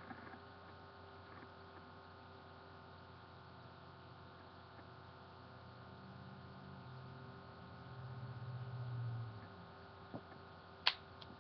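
Low, steady electrical hum. A faint low drone rises over it from about six to nine seconds in, and a single sharp click comes near the end.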